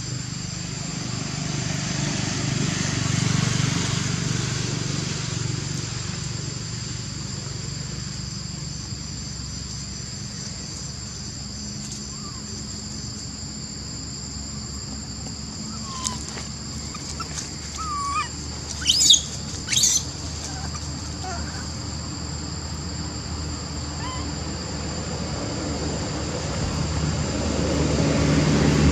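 Steady high-pitched insect drone over a low rumble, with a few short chirping calls midway and two sharp, loud high calls about two-thirds of the way through.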